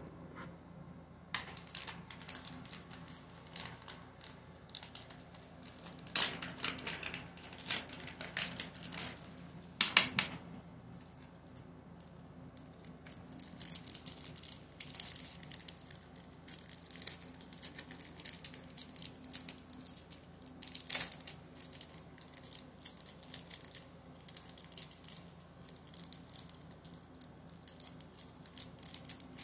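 Paper and plastic packaging crinkling and tearing as small packets are unwrapped by hand, in irregular bursts that are loudest about six and ten seconds in. A faint steady low hum runs underneath.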